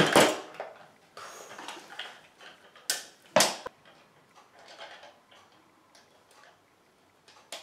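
Clicks and knocks of a hard plastic action-figure toy being handled as its parts are moved: a sharp knock at the start, two more about three seconds in, then scattered light ticks.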